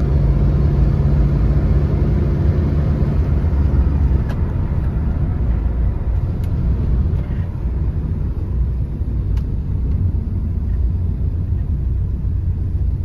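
A car running, with a steady low engine and road rumble. A low hum fades out about three seconds in.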